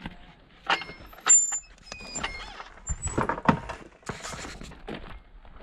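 Metal latch and wooden boards of a field gate being worked, with a series of clacks and knocks, the loudest just over a second in, and a couple of short high squeaks. Footsteps on a gravel track follow.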